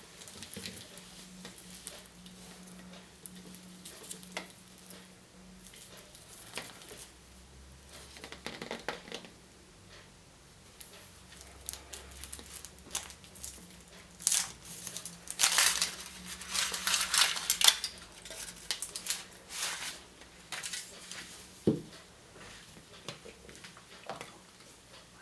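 Plastic and foil wrappers of surprise eggs being crinkled and torn open by hand, with scattered sharp clicks and taps. The crackling is densest and loudest a little past the middle, over a faint steady hum.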